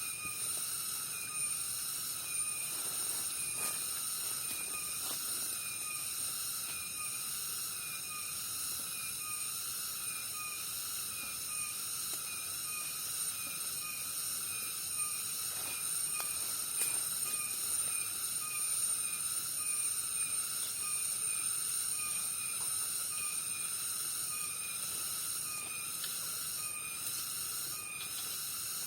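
Insect chorus in a rice paddy: a steady high-pitched buzzing drone, with a regular chirping call repeating about every two-thirds of a second beneath it.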